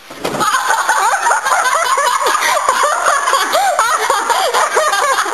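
Girls laughing hard with loud, high-pitched giggles that go on without a break.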